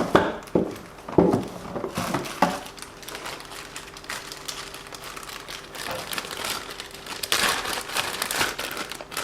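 Hands working on RC car parts: a few sharp plastic clicks and knocks in the first couple of seconds, then a crinkling, rustling sound of handling that swells again near the end.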